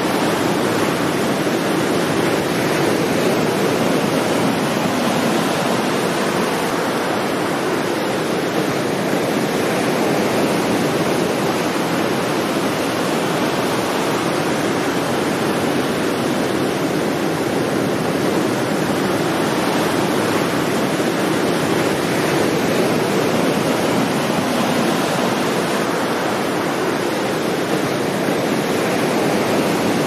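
Ocean surf washing onto a sandy beach: a steady, even rush of water noise with no distinct wave crashes.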